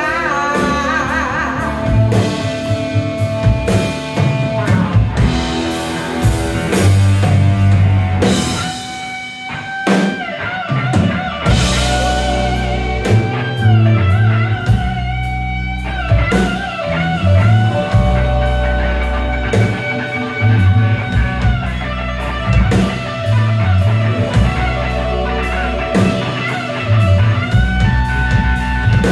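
Live rock band playing an instrumental passage: electric guitars, bass guitar and drum kit, with a lead line of long held notes that waver in pitch.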